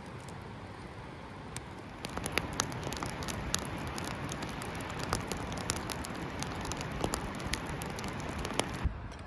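Wood campfire crackling: a steady hiss with frequent sharp pops, getting louder about two seconds in and cutting off abruptly just before the end.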